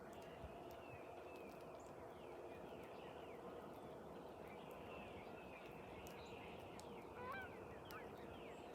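Faint birds chirping repeatedly over a low, steady drone, with a slightly louder call about seven seconds in.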